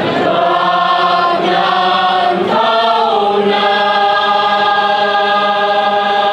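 Male police cadets singing in chorus and in harmony. The notes move for about three seconds, then the choir holds one long chord.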